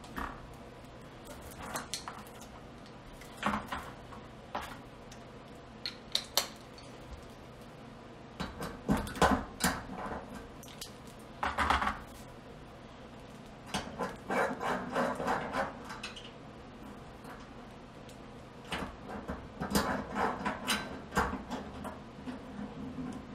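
Scattered clicks, clinks and scraping from metal burner parts and tools handled on a stainless-steel gas cooktop, with cardboard sliding across it. The sounds come in short clusters several seconds apart.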